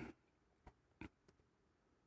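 Near silence with two faint light clicks about a second apart, small lock pins and tools being handled.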